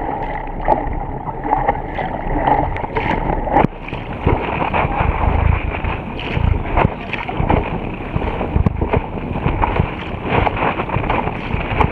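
Water rushing and spraying at the bow of a Topper Topaz sailing dinghy moving fast through chop, with frequent sharp slaps of spray and waves against the hull, and wind noise on the microphone.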